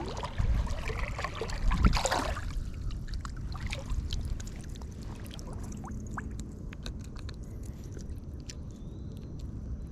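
Water splashing and sloshing for the first couple of seconds, loudest near two seconds in, then scattered light clicks over a steady low rumble.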